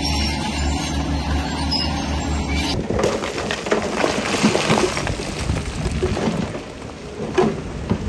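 Diesel engine of heavy earthmoving machinery running steadily. About three seconds in, the sound changes abruptly to stone crunching and clattering, with scattered knocks, over the engine.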